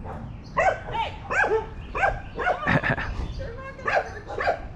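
A dog barking over and over in short, high-pitched barks.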